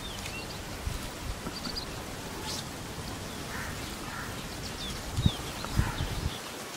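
Birds chirping now and then over a steady outdoor hiss, with two soft low thumps about five seconds in.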